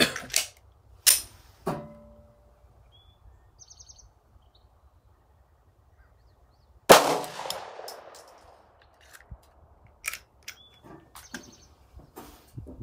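A 9mm pistol firing a single handloaded aluminum-cased round about seven seconds in: one sharp, loud report with an echoing tail. Before it, a few metallic clicks and clacks as the pistol is loaded and handled.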